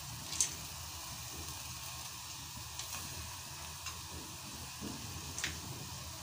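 Meat cooking in a steel pot, sizzling steadily, as handfuls of soaked chana dal are dropped in from a bowl of water. About four sharp splashes or clicks stand out, the loudest about half a second in.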